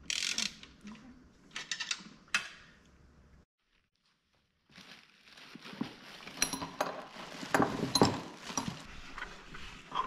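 Metal clicks, clinks and rattles of hand tools and bolts on a seat's steel frame as its mounting hardware is tightened. A few clicks come first, then a second of dead silence, then a busier run of sharp metallic clicks, some of them ringing.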